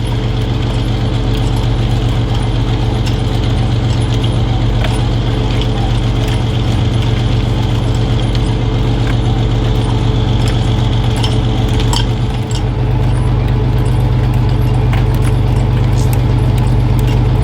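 Machinery on a squid-jigging fishing boat running steadily: a deep engine hum with light mechanical clicking and rattling over it. The hum dips briefly about twelve seconds in, then comes back slightly louder.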